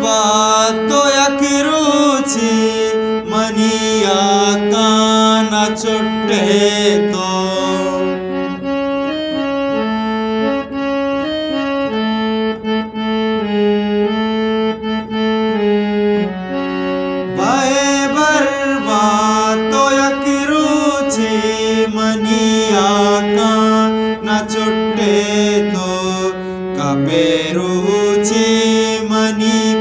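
Balochi ghazal: a male voice singing over sustained keyboard accompaniment. The voice drops out for an instrumental passage of about ten seconds after the first eight seconds, then comes back in.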